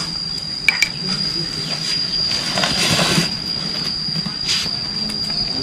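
Cooking oil being poured into a large frying pan, in uneven noisy swells with a click near the start. A steady high-pitched whine runs underneath throughout.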